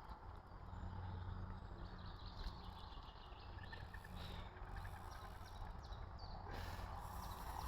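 Faint bird chirps over a low, steady outdoor rumble.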